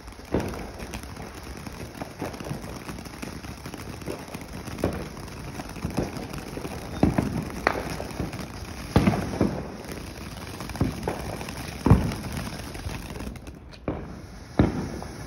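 Ground fountain firework spraying sparks with a continuous hiss, broken by irregular sharp pops and cracks, the loudest a second or two apart.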